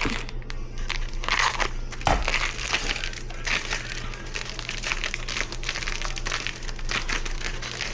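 Irregular rustling and crackling handling noise, with a sharper knock about two seconds in, over a steady low hum.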